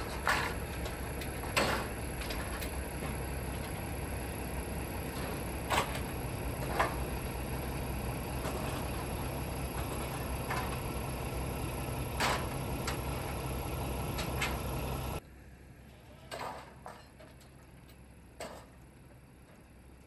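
Car assembly plant floor noise: a steady machinery hum with scattered clanks and knocks, which drops suddenly to a quieter background with a few more knocks about fifteen seconds in.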